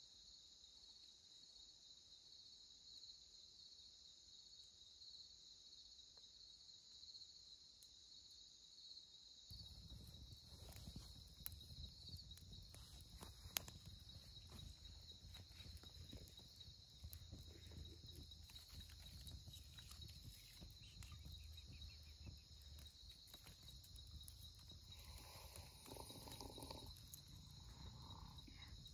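Crickets chirring steadily in a high, even trill at night. About ten seconds in, a low rumble with scattered faint crackles and clicks joins them, with one sharp click a few seconds later.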